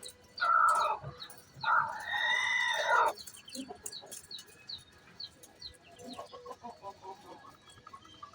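Hen calling before laying an egg: a short loud call, then a longer drawn-out call of about a second and a half. Softer clucking and chirps follow.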